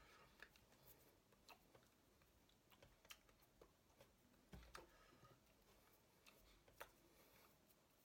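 Near silence: faint room tone with a few soft, scattered clicks and taps.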